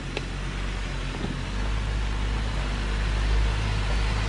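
Jeep Wrangler JL engine running at a low idle as the Jeep creeps down a steep dirt slope, its steady hum growing louder from about a second and a half in as it nears.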